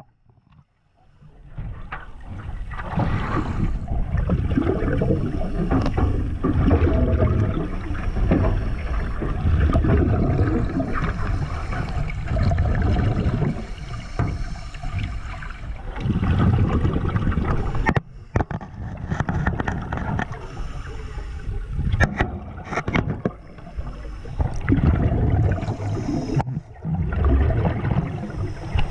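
Muffled underwater sloshing and gurgling of water against a camera in its waterproof housing, a low rumbling wash that swells and fades, with a few sharp knocks. The sound drops abruptly about eighteen seconds in, then builds again.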